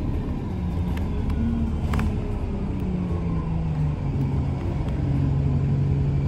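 Wright StreetLite single-deck bus running, heard from inside the passenger cabin: a steady low rumble with an engine note that falls in pitch over several seconds as the bus slows.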